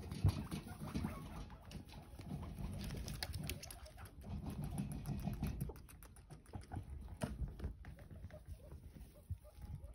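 Guinea pigs purring and chutting in low bouts of a second or so, with small feet pattering and scuffling on a mat.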